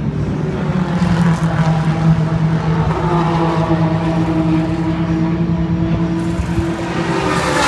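Race car engine idling steadily.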